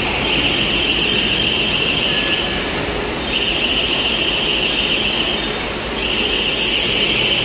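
Steady machine noise from a laser cladding machine depositing metal powder, with a high hiss over it that drops out briefly about three seconds in and again just before six seconds.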